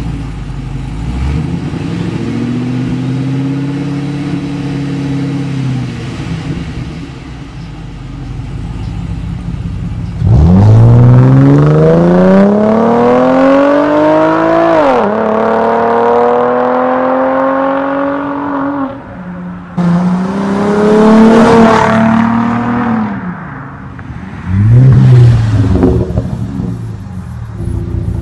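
Cadillac CTS-V wagon's supercharged 6.2-litre V8 idling, then accelerating hard with the exhaust note climbing, a sudden drop at a gear change, and climbing again. Two shorter revs rise and fall near the end.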